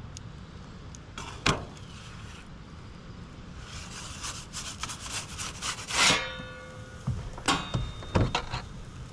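Perforated metal pizza peel scraping and rattling across the oven's stone as a pizza is slid into a charcoal pizza oven, ending about six seconds in with a loud metallic ring from the peel, then a few knocks as the peel is pulled back out.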